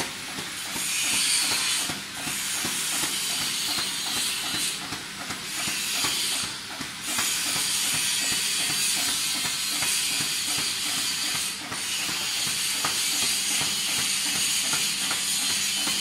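Shrink sleeve label cutting machine running, a steady hiss with a rapid, even clicking from its mechanism.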